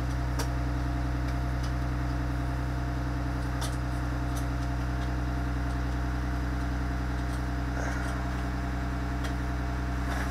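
2017 IC CE school bus's diesel engine idling steadily, heard from inside the cab.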